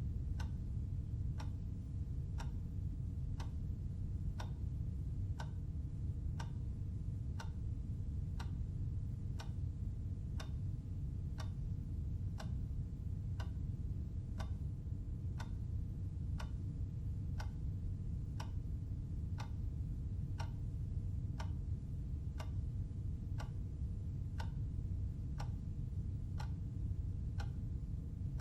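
Clock ticking steadily, about once a second, over a steady low rumble.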